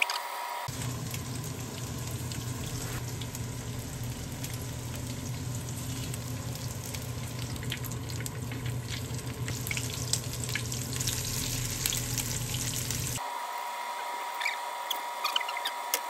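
Battered jeon frying in oil on a griddle and in a frying pan: steady sizzling with fine crackles. The sizzle changes abruptly at about a second in and again at about 13 seconds, and a few light utensil clicks come near the end.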